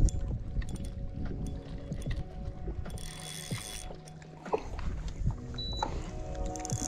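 Spinning reel working under load while a hooked bass is fought: the gears whir faintly with scattered ticks from the reel.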